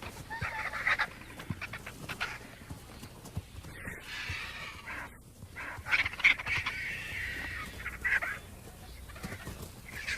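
Scavengers feeding at a fresh impala carcass: a run of irregular, harsh, raspy calls with scattered clicks, several louder bursts coming about six and eight seconds in.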